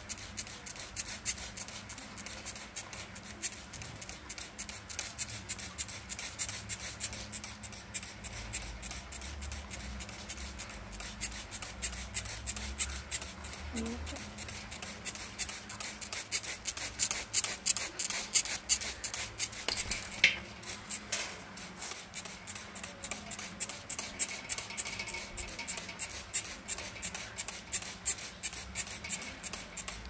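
A wet Alexandrine parakeet shaking out and flapping its feathers after a bath: quick feathery rustling and fluttering made of many fast crackling ticks, busiest through the middle.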